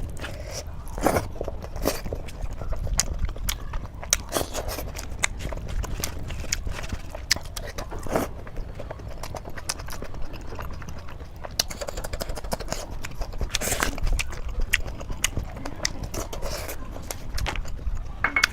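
Close-miked eating sounds: chewing with irregular wet mouth clicks and lip smacks, several a second.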